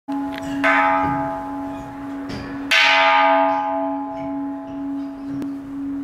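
Hanging bronze temple bell struck with a mallet: two strikes about two seconds apart, each a bright clang that fades into a long low hum that wavers slowly in loudness.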